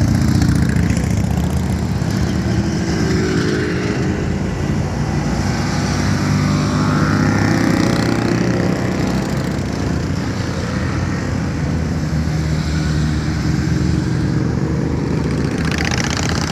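Motorcycles riding past one after another at low speed, their engines running steadily and loud, with the engine note rising and falling as a bike goes by near the middle.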